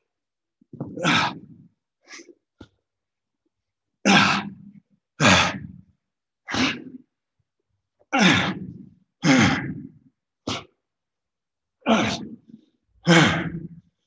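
A man breathing hard under heavy exertion: about ten sharp, forceful breaths out, roughly one every second or so, each cut short, with silence between them.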